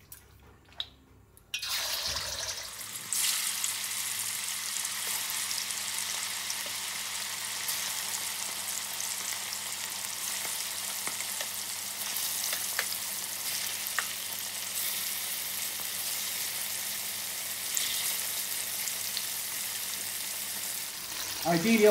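Marinated chicken pieces going into hot oil and ghee in a cast-iron karahi. A steady sizzle starts suddenly about a second and a half in and grows fuller as more pieces are added, with a few faint ticks of spattering oil.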